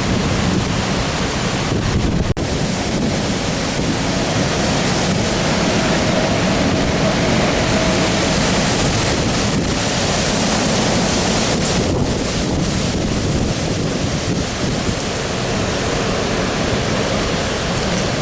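Hurricane-force wind blowing hard and steadily, with heavy wind buffeting on the microphone.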